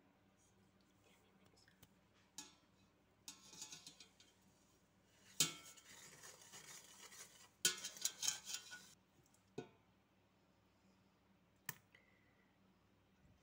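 Whisk scraping and clinking against a stainless steel mixing bowl as sugar is stirred, in three short bouts with sharp knocks between them, then a single sharp knock near the end.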